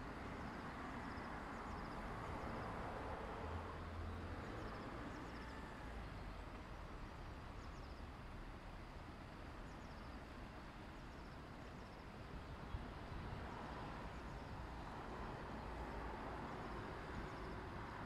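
Steady rush of a shallow stream running over rocks, with a low rumble underneath and a few faint high chirps now and then.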